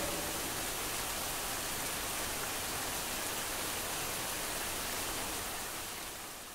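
Steady hiss of falling rain with no music, fading out near the end.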